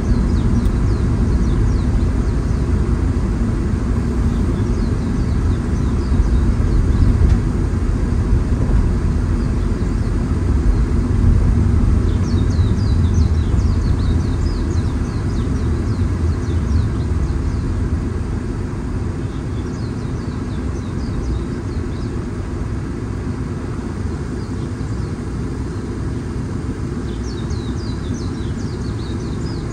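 Steady low road and engine rumble of a car driving, easing a little past the middle as it slows. Short high bird chirps come through in several runs.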